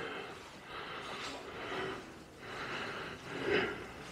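A person breathing close to the microphone: about three noisy breaths, each around a second long.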